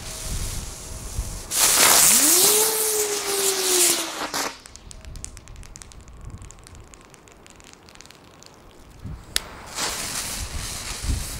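Ground spinner fireworks (Pyro Power Tornado) hissing as they spin and spray sparks. The loudest spinner gives a whine that rises quickly, then sinks slowly until it dies out about four and a half seconds in. Faint crackling follows, then a sharp crack, and near the end another spinner, this one without its cap, starts hissing.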